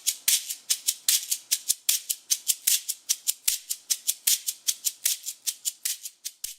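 A dry rattle shaken in a steady rhythm, about five or six hissy shakes a second, like a maraca.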